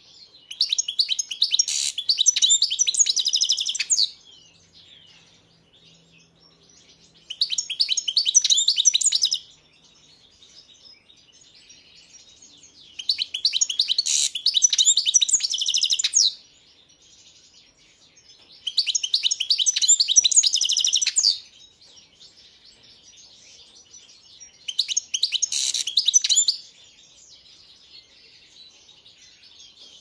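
European goldfinch singing: five bursts of fast, high twittering song, each two to three seconds long, with softer twitters in between.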